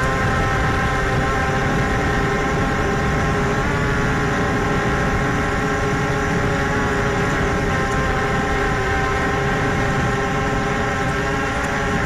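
Aosenma CG035 GPS quadcopter's four motors and propellers whining steadily, close up as picked up by its onboard camera, the pitch shifting slightly about four and eight seconds in.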